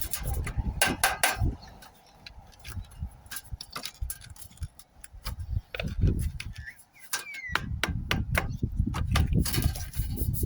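Irregular sharp knocks and clicks of a Colorbond steel chimney tray and clay roof tiles being handled and set into position, with a low rumble at the start and again from about three-quarters through.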